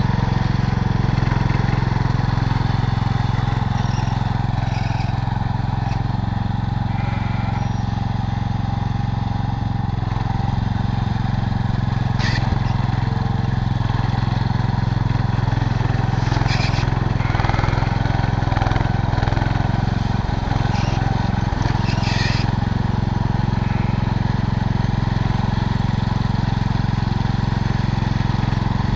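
1967 Cub Cadet 122 garden tractor's single-cylinder engine running steadily while its front loader scoops sand, with a few brief sharp clanks partway through.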